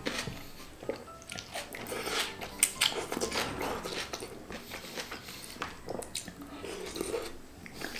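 Close-up mouth sounds of eating mee celup noodles: slurping and chewing with irregular wet clicks and smacks, the loudest about two and a half seconds in.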